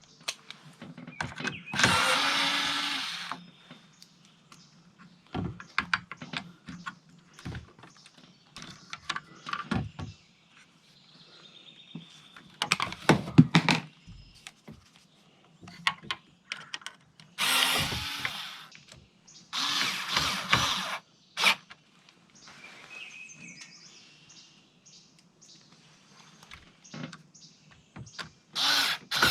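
Power drill/driver running in short bursts of about a second, five or so times, driving screws to fasten a plastic screen door slider cover to a camper door, with clicks and knocks of handling in between.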